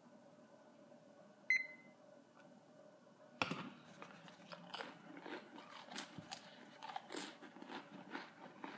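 A handheld digital timer gives one short beep as it is started. From about three and a half seconds in, saltine crackers crunch between the teeth, with sharp irregular crackles bite after bite.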